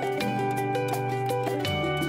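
Instrumental background music: a run of short, evenly paced notes over a held bass, which moves to a new note about three quarters of the way through.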